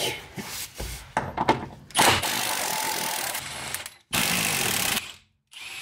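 Cordless power tool on a long socket extension undoing a 21 mm rear subframe bolt. Clicks and knocks come first as the socket is fitted, then the tool runs steadily for about two seconds, stops briefly and runs again for about a second.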